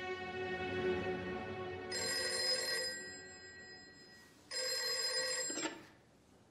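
Old desk telephone's bell ringing twice, each ring about a second long, over a held string note from the score that fades away; near the end the receiver is picked up with a short clatter.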